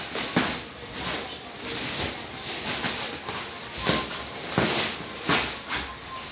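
Plastic stretch wrap being pulled and torn off a wrapped package: crinkling and ripping in irregular bursts, a few sharper rips among them.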